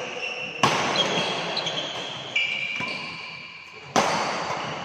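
Badminton racket, a Li-Ning Windstorm 72, striking a shuttlecock twice, about three and a half seconds apart, each a sharp crack that rings in the hall. Short squeaks of shoes on the court floor come between the hits.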